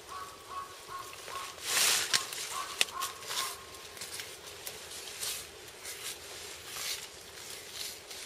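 Rustling and short scraping strokes of hands and a knife skinning a deer, the hide being cut and peeled back from the carcass, with a few sharp clicks; the loudest rustle comes about two seconds in.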